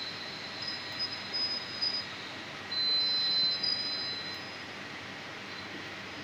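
A high-pitched steady whine that comes and goes, loudest for about a second and a half near the middle, over a steady background hiss.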